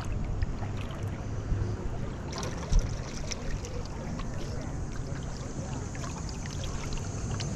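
Kayak paddle strokes: blades dipping and dripping into the water, with wind rumbling on the microphone. One short thump about three seconds in is the loudest sound.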